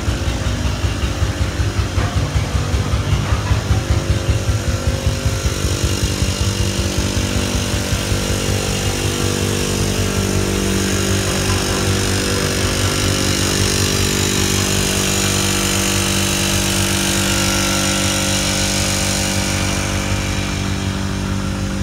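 Vintage tractor engines running at idle. For the first several seconds one chugs nearby with an even, pulsing beat, then it gives way to a steadier running sound whose pitch shifts slightly.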